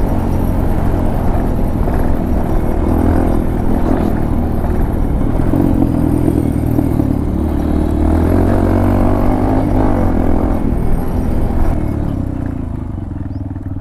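Hero Impulse motorcycle's swapped-in Karizma 223 cc single-cylinder engine running under way, its note rising and falling with the throttle. Near the end it eases off and drops toward idle as the bike slows.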